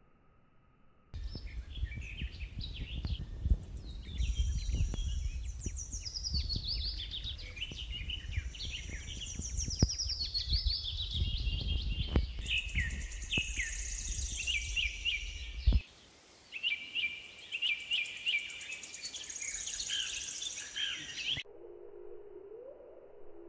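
Several birds chirping and whistling in quick, overlapping high-pitched calls, over a low rumble with a few sharp knocks. The rumble stops about two-thirds of the way in. Near the end it all cuts off abruptly to a quieter, steady low tone.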